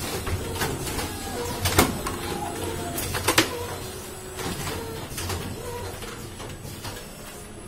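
KTK automatic screen printing machine running, its squeegee and flood-bar carriage sliding across the screen with a steady mechanical clatter. Sharp knocks come about two seconds in and twice about three seconds in.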